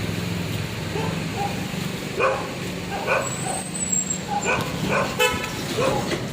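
Street traffic: an engine running steadily, with a short horn toot about five seconds in and brief calls in the background.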